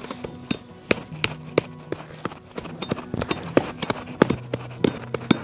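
Lumps of white clay being pounded into powder by hand on hard ground: sharp, even knocks about three a second.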